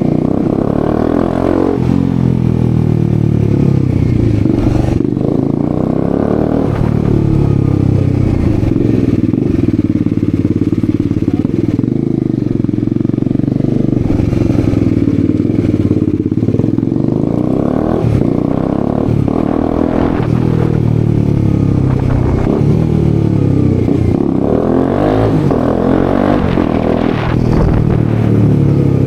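Bajaj Dominar 250's single-cylinder engine running with its exhaust end can removed, loud and raspy, its revs rising and falling again and again as the bike is ridden through the gears.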